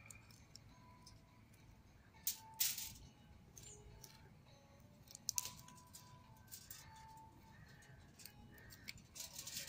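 Papery crackling of dry garlic skins being peeled from cloves by hand, in a few short bursts, the loudest about two and a half seconds in and again after five seconds.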